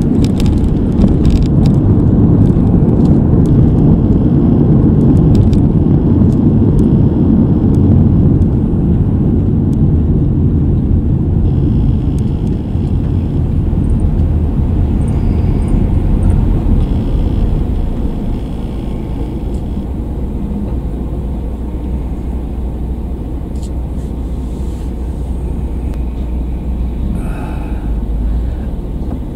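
Car cabin road and engine noise, a steady low rumble while driving in city traffic. About two-thirds of the way through it eases to a quieter steady low hum as the car slows and waits behind a bus.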